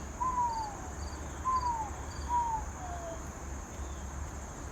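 Three short whistled notes, each sliding down in pitch from about the same height, over a steady chirring of crickets with regular pulsed chirps.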